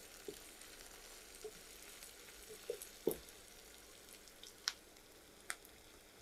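Faint, steady sizzle of sliced onions and green chilies frying in oil in a wok, with scattered pops and ticks, the loudest about three seconds in.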